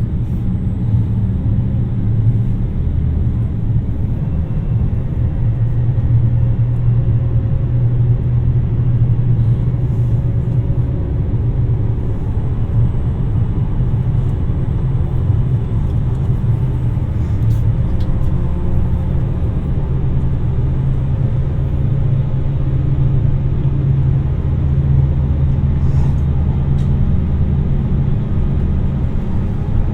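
Inside a JR Shikoku 2700 series diesel limited express railcar under way: a steady low engine drone with wheel-on-rail rumble and a few faint ticks.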